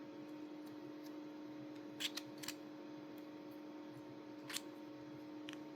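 A few short, sharp clicks of 3D-printed plastic parts being handled and fitted together, scattered through the seconds, over a faint steady electrical hum.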